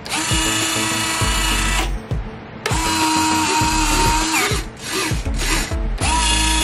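Small electric motor of a model airliner's retractable nose landing gear whining as it swings the gear leg. It runs three times: for about two seconds, again for nearly two seconds, then starts once more near the end. Each run rises briefly in pitch as it starts, then holds a steady whine.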